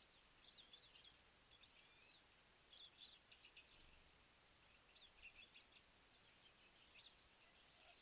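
Faint, high-pitched chips and twitters of small songbirds, coming in four or five short runs.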